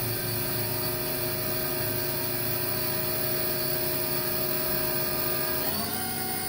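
Okuma ESV-3016 vertical machining center's CAT 40 spindle running free at a steady 5,000 RPM, a steady whine with several tones. Near the end the pitch steps up as the spindle speeds up toward 6,000 RPM.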